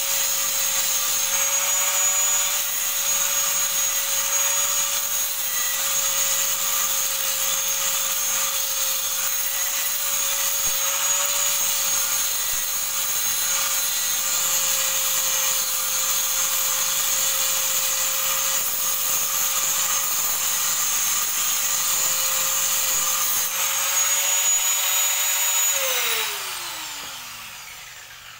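Handheld electric angle grinder running steadily with a constant whine as its disc grinds the surface of a steel bar clamped in a vise. Near the end it is switched off and winds down, its whine falling in pitch as it fades.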